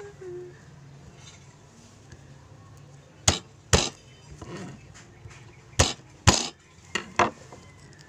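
A knife striking garlic cloves on a plastic cutting board to crush them and loosen the skins. There are six sharp knocks in three pairs, starting about three seconds in.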